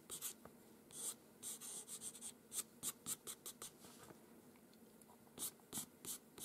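Pastel pencil stroking quickly over paper in short flicks for fine fur hairs: a rapid run of faint, scratchy hisses. They pause for about a second and a half past the middle, then a few more strokes follow.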